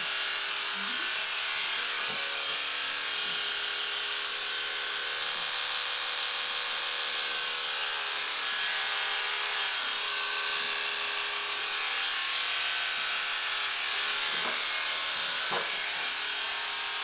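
Cordless electric horse clippers running steadily, buzzing as they cut the long feather hair from a Friesian horse's fetlock.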